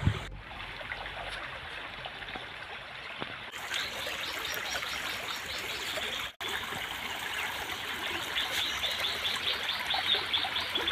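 Shallow stream trickling over stones: a steady hiss of running water, with faint rapid high chirps from about four seconds in and a brief dropout about six seconds in.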